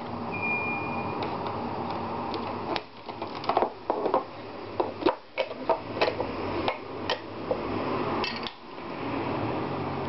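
A run of sharp clicks and knocks, from about three seconds in, as the ground-coffee container is worked out of the front of a De'Longhi KG79 burr grinder and handled, over steady background noise.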